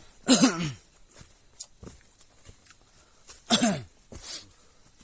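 A person coughing: two loud, hoarse coughs with falling pitch about three seconds apart, with fainter ones between.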